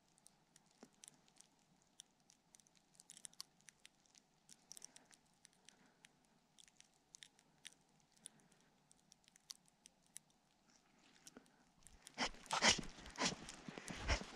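Faint, scattered small clicks and crackles, then near the end footsteps crunching in fresh snow, louder and irregular.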